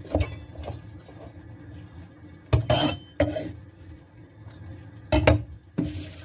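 Kitchenware being handled on a wooden counter: a metal cleaver and pots or bowls knocking and clinking, several separate knocks, one with a brief metallic ring about three seconds in.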